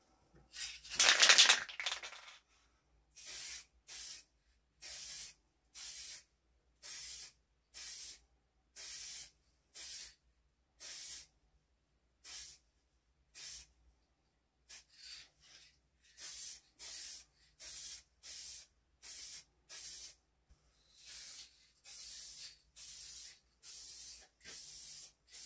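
Aerosol can of spray polyurethane varnish hissing in short bursts, about one a second, with a longer, louder burst about a second in.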